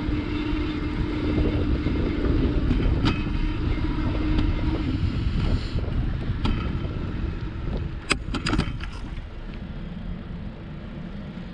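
Wind buffeting the microphone over the rolling noise of a bicycle on pavement. A steady hum runs through the first half, a few sharp clicks come about eight seconds in, and it all grows quieter in the last few seconds.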